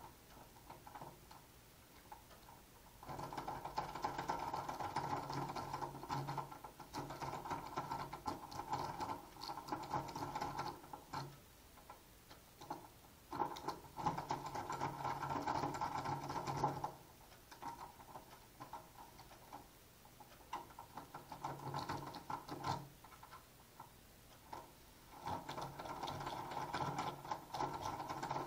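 Sparrows rake pick being jiggled against the pins of a pin tumbler lock, held under tension: rapid metallic clicking and rattling in spells of several seconds with short pauses between. The lock has not yet opened.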